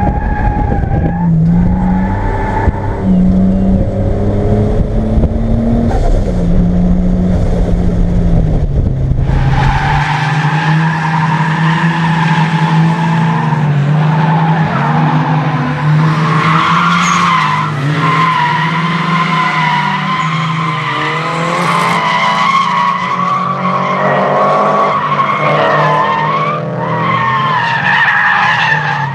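Toyota Supra MK3's turbocharged 7M-GTE inline-six engine revving up and down as the car drifts, its rear tyres squealing. The tyre squeal is strongest from about a third of the way in.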